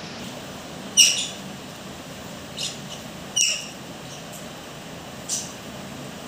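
Pet conures giving short, high-pitched squawks, four in all, the loudest about a second in and about halfway through.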